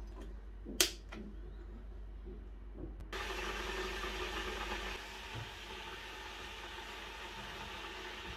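Stainless-steel Karaca electric kettle knocked down onto its base about a second in, then switched on with a click near three seconds; from there its heating element gives off a steady hiss as the water starts to heat.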